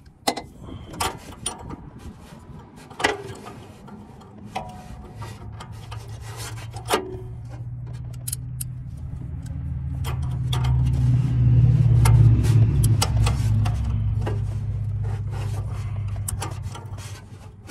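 Light metal clicks and scraping as an oxygen sensor is turned by hand into the exhaust and a socket is handled and fitted over it. Under them, a low droning rumble swells to its loudest about twelve seconds in and then fades.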